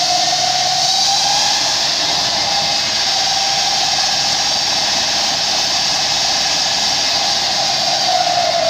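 Homemade electric motorcycle motor spinning the raised rear wheel free, with no load: a steady high whine over a loud rushing hiss. The whine rises slightly in the first second or so, then holds, and begins to drop near the end as the wheel starts to slow.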